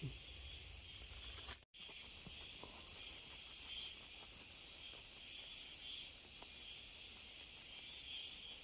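Faint, steady high-pitched chorus of insects, swelling and fading in places, with a few faint ticks. All sound drops out for a moment about two seconds in.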